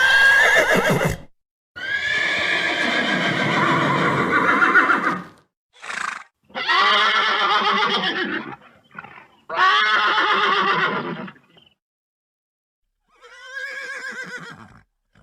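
A horse neighing and whinnying over and over: about six separate calls, from under a second to about three seconds long, divided by short silent gaps. The last call, near the end, is fainter.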